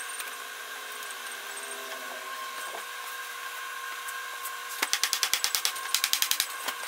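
Mallet blows on an oak chair frame, two quick runs of rapid knocks near the end, shocking the old hide-glue joints apart. A steady hum runs underneath.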